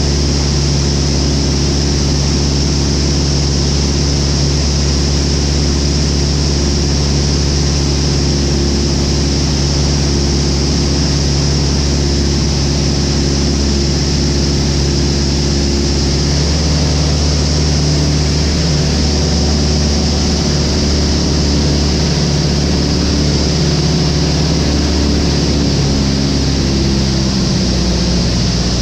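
Van's RV light aircraft's piston engine and propeller droning steadily, heard inside the cockpit under the canopy. The engine note shifts a little just over halfway through.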